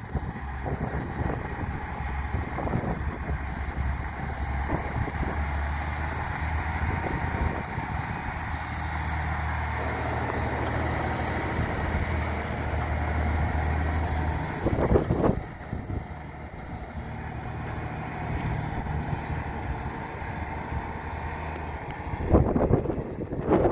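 Diesel engine of a MAN truck tractor running at low speed, pulling a heavily loaded lowbed trailer; a steady low hum for most of the first half, going lighter about fifteen seconds in. Gusts of wind buffet the microphone about fifteen seconds in and again near the end.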